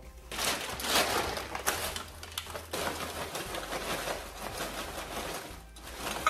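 Frozen green peas poured from a plastic bag, rattling into a glass food container as a dense, steady clatter of small clicks that stops just before the end.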